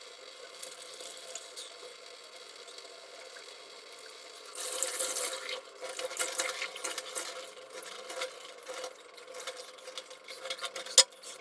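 Handling noises: rubbing and scraping with many small clicks, and a short hiss about four and a half seconds in.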